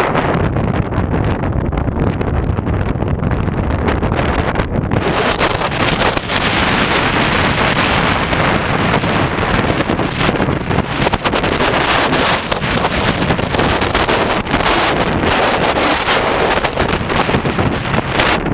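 Strong hurricane wind blowing across the microphone, with ocean surf beneath it; the wind gusts harder about five seconds in, adding a louder hiss.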